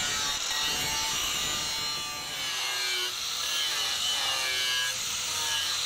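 Angle grinder with an abrasive disc grinding the steel of an old file being shaped into a blade: a steady gritty grinding with the motor's whine dropping in pitch a few times as the disc bites. A brief dip in loudness about two seconds in.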